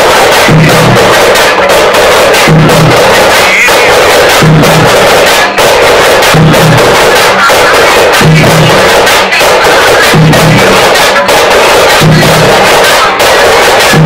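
A troupe of thappu (parai) frame drums beaten with sticks in the fast thappattam folk rhythm, loud and dense, with a deeper beat recurring about every two seconds.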